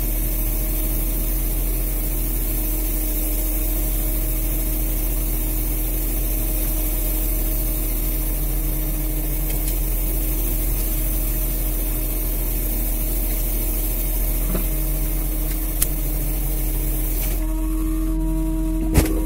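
Fishing boat's engine running steadily, a constant drone with a rushing noise over it. Near the end the rushing drops away, leaving a steady hum, and a few sharp clicks follow.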